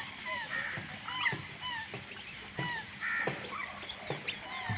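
A flock of birds calling, with many short, downward-curving call notes overlapping one another throughout.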